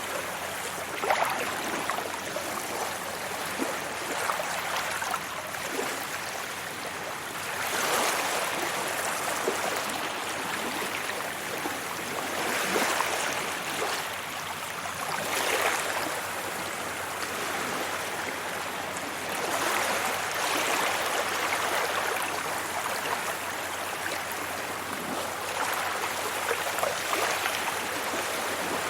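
Sea waves breaking and washing up on a beach: a continuous rush of surf that swells every few seconds as each wave comes in.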